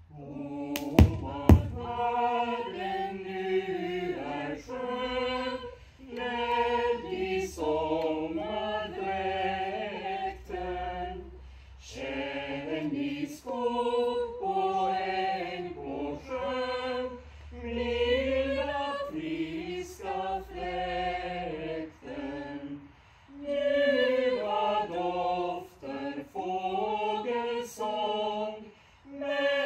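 A small choir singing unaccompanied in phrases with short breaks between them. Two sharp knocks sound about a second in.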